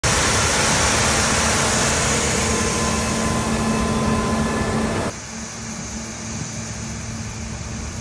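New Holland CR9.90 combine harvester running as it strips standing wheat with a Shelbourne Reynolds stripper header: a steady low drone over a rushing hiss. About five seconds in the sound drops suddenly in level and loses much of its hiss.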